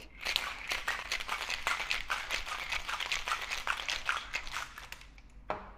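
Ice rattling hard inside a metal cocktail shaker as it is shaken, a fast, dense clatter that stops about five seconds in.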